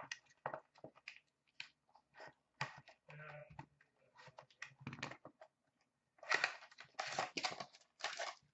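Hands handling and opening a small cardboard hockey-card box and its paper-wrapped contents: scattered scrapes, taps and rustles, turning into a quicker run of rasping paper-and-cardboard noises about six seconds in.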